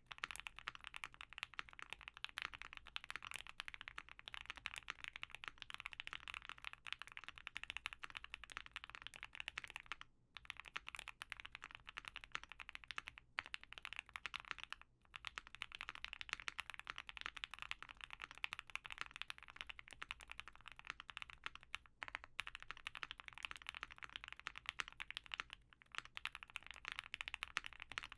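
Fast, continuous typing on an OwLab Mr. Suit custom mechanical keyboard with lubed Banana Split linear switches, a POM plate and GMK keycaps. The keystrokes come in a dense stream, broken by a few brief pauses.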